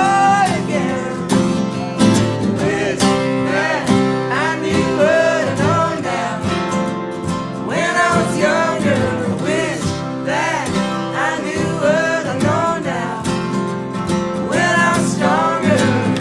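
Country-style song: acoustic guitar accompaniment under a wavering, bending melody line.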